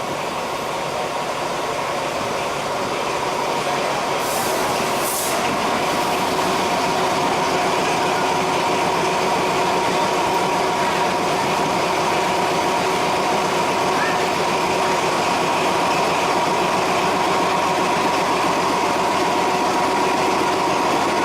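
Diesel train engine running with a steady hum, growing gradually louder, with two brief hisses about four and five seconds in.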